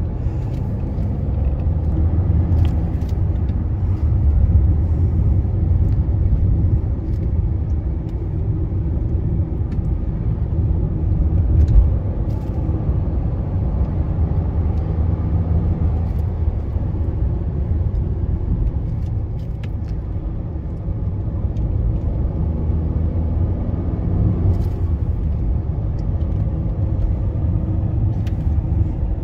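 Road noise inside a moving car's cabin: a steady low rumble of tyres and engine at road speed, with a brief thump about twelve seconds in.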